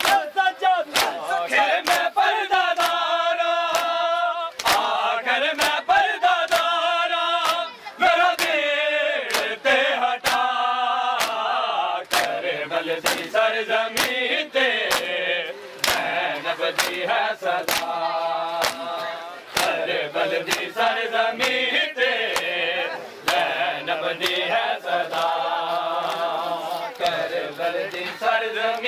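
Men chanting a mourning lament (noha) together, with sharp slaps of hands beating on bare chests (matam) keeping a steady rhythm.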